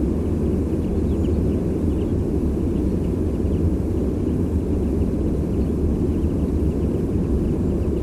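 Steady low rumble of distant sea surf, with faint short high calls of small migrating songbirds scattered through it.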